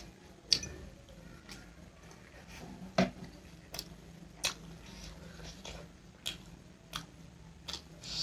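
Close-miked eating sounds: irregular sharp clicks and smacks of a person chewing food, about one every half second to a second.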